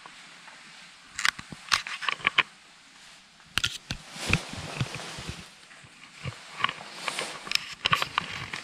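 A textile motorcycle jacket being handled: its fabric rustling, with clusters of sharp clicks and knocks.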